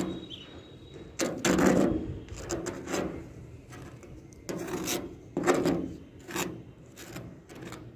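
Rough scraping or rubbing strokes worked by hand, irregular and roughly one a second. The longest and loudest stroke comes about a second and a half in.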